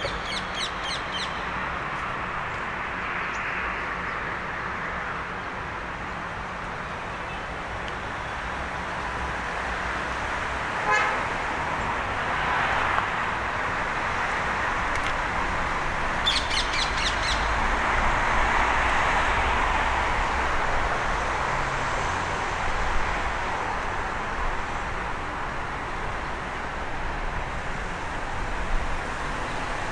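Steady city road traffic, with one brief car horn toot about a third of the way in. Short, high bird trills come right at the start and again about halfway through.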